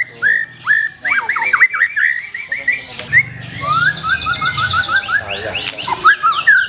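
White-rumped shama (black-tailed murai batu) singing a fast, varied song: quick runs of repeated chirps, swooping whistled notes and rapid high trills.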